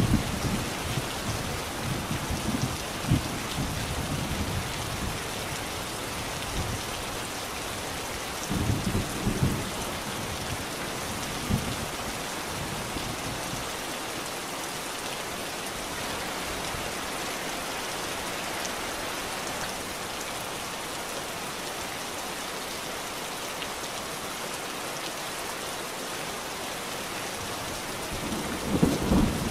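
Steady rain, with low rolls of thunder in the first few seconds, again about nine seconds in, and building near the end.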